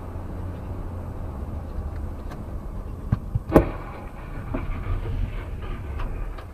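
Low, steady road and engine rumble of a car, broken about three and a half seconds in by a sharp bang of a vehicle collision. Two smaller knocks come just before it, and scattered clattering follows for a couple of seconds.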